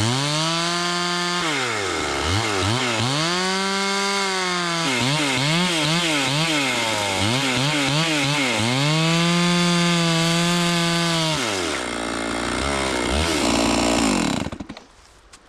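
Chainsaw ripping a log lengthwise into lumber, its engine pitch rising and sagging again and again as the chain bogs and frees in the cut. Near the end the engine drops to a low idle and then stops.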